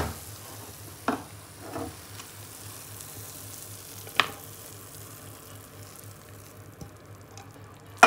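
Wooden spatula scraping and knocking against a nonstick pan and a plastic tray while thick, cooked pumpkin barfi mixture is scooped across. It gives a few short sharp knocks about 1, 2 and 4 seconds in, over a faint steady hiss.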